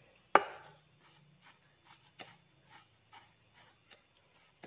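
Metal fork tapping and scraping on a plastic plate as breadcrumbs are worked over fish fingers: one sharp click about a third of a second in, then faint light ticks and scrapes, a few a second.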